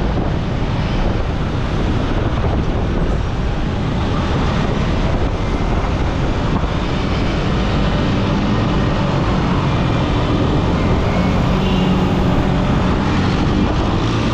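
Yamaha R15M's single-cylinder engine running steadily under way through its stock exhaust, with wind rushing over the microphone.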